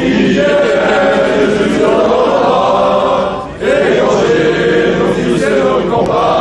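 A large crowd of demonstrators singing together, many voices at once, with a short pause between phrases about three and a half seconds in.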